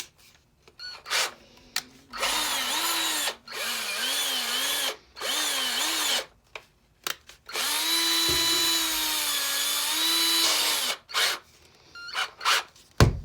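Old Black & Decker cordless drill's motor test-run after being taken apart and reassembled: three short trigger pulls with the speed wavering up and down, then a longer, steadier run of about three seconds. A few clicks come before and after the runs.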